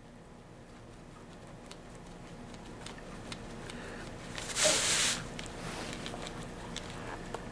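Multi-tool blades cutting through the plastic housing of an EpiPen auto-injector: faint snipping and handling ticks, with one short, louder burst of cutting noise a little past halfway.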